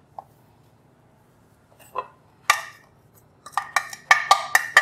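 Stainless steel mixer-grinder jar tapped against a steel kadai to shake out the ground powder: two knocks about two seconds in, then a quick run of ringing metal clinks near the end.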